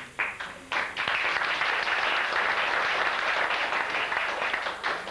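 Audience applauding: a few scattered claps, then full, steady applause from about a second in, breaking up into single claps near the end.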